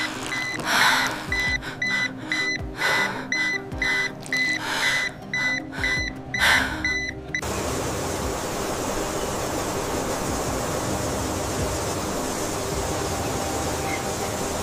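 Background music: a short high beep repeating two to three times a second over low held tones, with a rushing swell about every two seconds. About halfway through it gives way to a steady hiss-like ambient bed.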